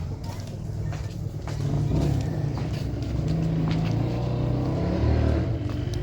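A motor vehicle's engine running, its low hum shifting in pitch and growing louder about two seconds in and again near five seconds.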